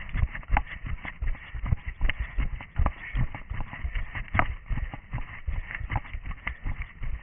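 Running footsteps of an orienteer moving fast over rough ground at night: quick, fairly even thuds, picked up by a body-worn camera.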